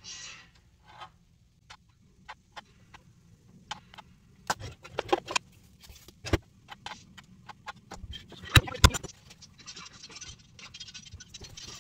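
Kitchen prep handling: scattered knocks and clicks of utensils and containers on a countertop, with two sharp, loud clicks close together a little before the end. Near the end comes a stretch of paper rustling.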